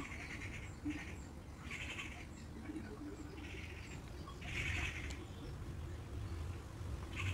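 Faint outdoor background: a bird chirping in short calls about once a second, over a low steady rumble.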